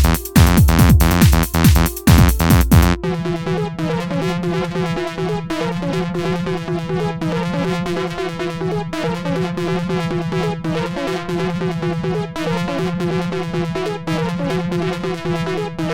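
Electronic music: a loud passage with heavy bass and a steady beat changes about three seconds in to a quieter passage of held synthesizer tones over a fast, regular pulse.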